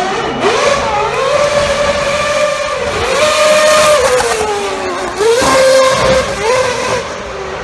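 2011 Red Bull RB7's 2.4-litre Renault V8 Formula One engine revving hard during wheelspinning donuts, then driving past. The pitch climbs, holds high and drops again several times, and falls away near the end.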